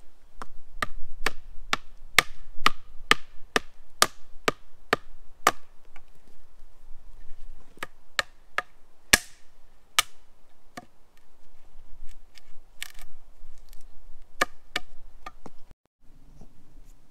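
Wooden poles being hammered with a hand tool while building a pole frame: a quick even run of sharp wooden knocks, about two a second, then slower, scattered blows, one louder with a short ringing tail, and a few more before the sound cuts off near the end.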